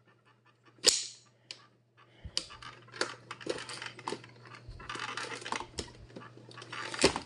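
Irregular plastic clicks, knocks and rustling of a webcam being handled and fitted onto its mount, with one sharper clatter about a second in.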